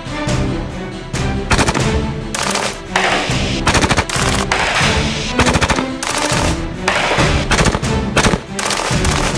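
7.62 mm rifle firing at a target, shots coming in quick strings of several at a time from about a second and a half in, over background music.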